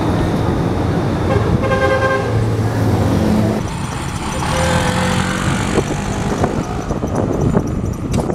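Road traffic with a vehicle horn sounding steadily for about two seconds, then the engine and road noise of a motor scooter being ridden.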